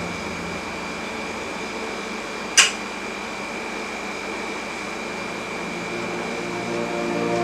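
Steady room tone with a fan-like hum and a thin high whine, broken once about two and a half seconds in by a single sharp click from a plastic makeup compact being handled and opened.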